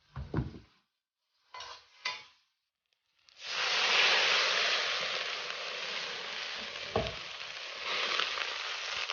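A few light knocks, then from about three seconds in a loud, steady sizzle of food frying in a hot pan, with one sharp utensil knock near seven seconds.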